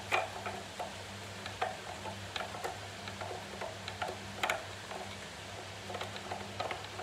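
Hand-crank spiralizer cutting a courgette into spirals: irregular clicks and ticks from the turning crank and the blade biting the vegetable, over a faint steady low hum.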